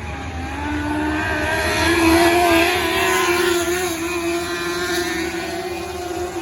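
Micro sprint race car engines running at high revs, the pitch wavering up and down as they race, loudest about two seconds in.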